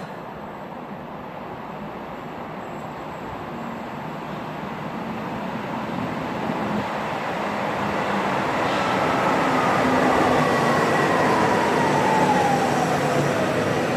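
A Stuttgart Stadtbahn light-rail train approaching and running in, its rumble growing steadily louder. In the second half a whine sets in and falls smoothly in pitch over about five seconds.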